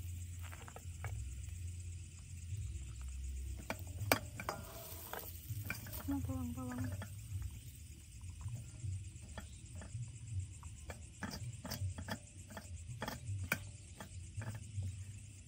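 A silicone spatula scraping and knocking against a stainless steel wok as noodles are stir-fried and scooped out, in many short irregular strokes, with faint sizzling. A steady low hum runs underneath.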